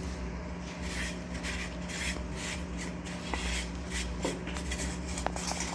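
Rubbing strokes of a cloth or brush cleaning a dismantled ceiling fan's body, starting about a second in at roughly two strokes a second, over a steady low hum.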